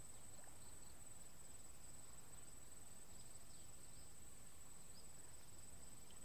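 Faint riverside ambience: a steady high-pitched insect trill, crickets, over low background hiss, with a few faint short chirps.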